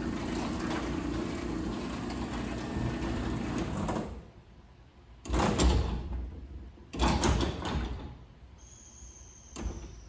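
LiftMaster garage door opener running steadily as it raises the sectional door, stopping about four seconds in. Then two short bursts about a second and a half apart, as the door is jogged a little higher while the up travel limit is being set.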